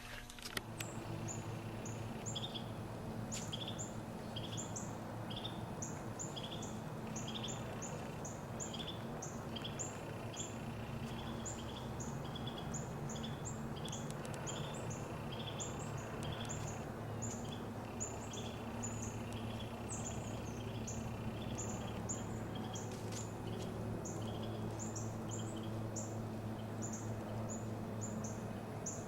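A steady series of short, high chirps repeating about twice a second, over a continuous low rumble of outdoor background noise.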